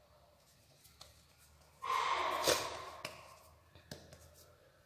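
Hands working a ball of soft bread dough, with a few soft pats and clicks. Just under two seconds in, a loud breathy rush of noise starts suddenly and fades away over about a second.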